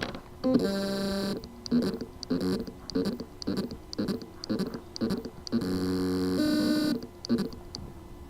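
A 2.5-inch portable hard drive's spindle motor buzzing as it tries to spin up but cannot reach full speed, the sign of loose motor contacts on the drive's circuit board. It pulses about twice a second, with two longer steady buzzes, one near the start and one about six seconds in.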